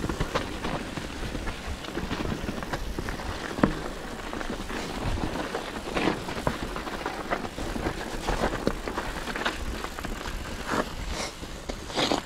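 Commencal Meta SX mountain bike descending a wet dirt and rock trail: tyres rolling over dirt and stones under steady noise, with frequent short clicks and knocks as the bike rattles over roots and rocks.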